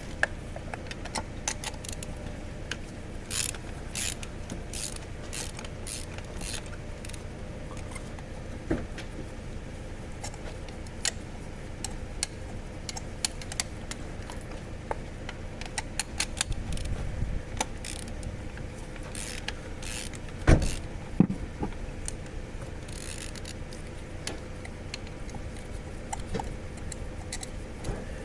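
Scattered metallic clicks and clinks of hand tools at work on a car engine, over a steady low hum. Two louder knocks come about two-thirds of the way through.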